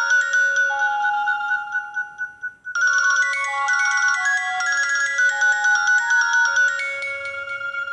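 Nokia N70 polyphonic ringtone playing a synthesized melody of bright, stepped notes. It breaks off briefly about two and a half seconds in, starts a new phrase, and fades out near the end.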